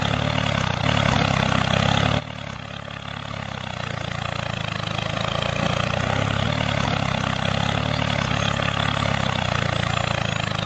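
Homemade mini tractor's small motor running steadily. The sound drops abruptly about two seconds in, then slowly grows louder again.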